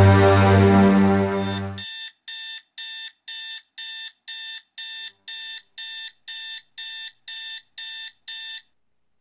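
Electronic alarm clock beeping: short, identical high-pitched beeps, about two a second, starting when loud music cuts off about two seconds in and stopping shortly before the end.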